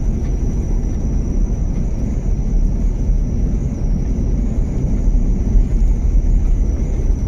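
Steady low engine and tyre rumble heard from inside the cabin of a Land Rover Discovery driving along a wet single-track road.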